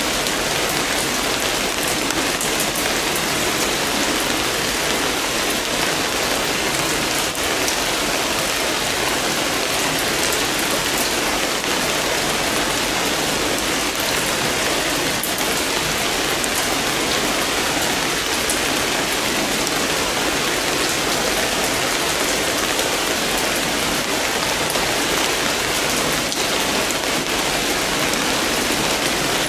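Steady rain falling: a dense, even hiss with scattered ticks of drops striking surfaces.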